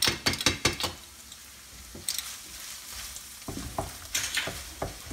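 Ground beef and tomato paste sizzling in a frying pan while being stirred. A quick run of scrapes and knocks of the utensil against the pan comes in the first second, and more comes again near the end, over a steady frying hiss.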